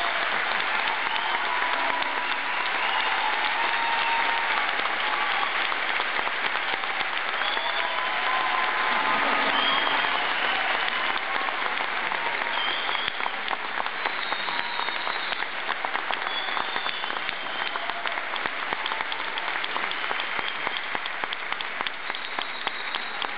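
Concert audience applauding steadily, with scattered cheers above the clapping. The applause eases a little about halfway through, into more separate claps.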